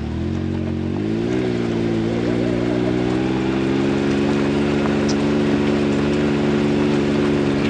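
A vehicle engine running steadily under way. Its pitch rises and dips briefly about a second in, then settles into an even note for the rest of the time.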